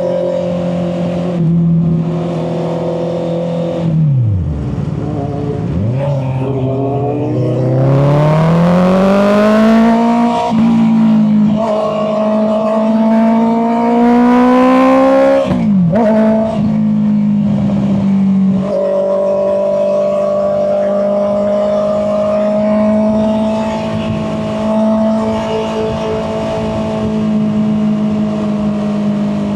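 Honda CB650R's inline-four engine under way: it runs steadily, drops off sharply about four seconds in, then rises in pitch twice as it accelerates, with quick dips as the revs fall between pulls. For the last ten seconds or so it holds a steady cruise.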